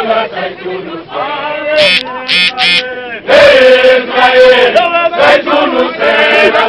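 A crowd of union members singing a protest song together in chorus, mostly men's voices. A few short, shrill high calls ring out over the singing about two seconds in.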